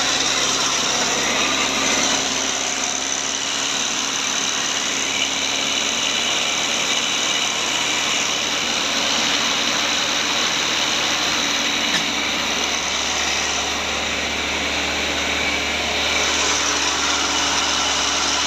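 Tow truck's engine running steadily at idle, with a small click about twelve seconds in.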